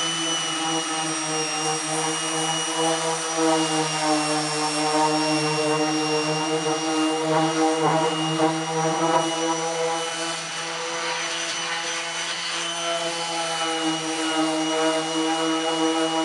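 Corded electric orbital sander running steadily with a high whine, its pad sanding body filler on a car hood.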